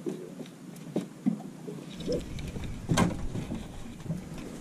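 Scattered knocks and clicks, the loudest about three seconds in, with wind rumbling on the microphone from about two seconds in.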